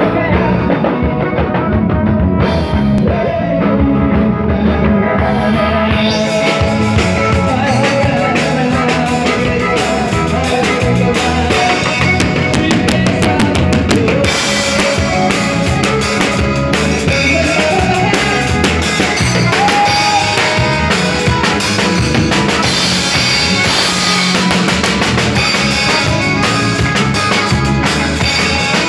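A live sertanejo band playing: accordion, electric bass and a full drum kit, with a man singing into a microphone. The drums and cymbals fill in during the first few seconds, and then the band plays on at full volume.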